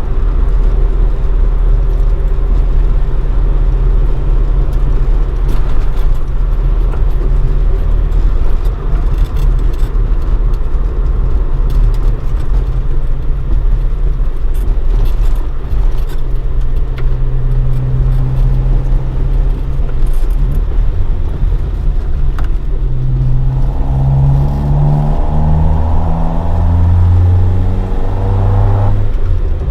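Toyota AE86 Sprinter Trueno with a swapped AE111 20-valve four-cylinder on four individual throttle bodies and a Fujitsubo Legalis R exhaust, driving along at steady cruising revs. Over the last several seconds the revs climb under acceleration, then drop suddenly near the end as the throttle is lifted or a gear is changed.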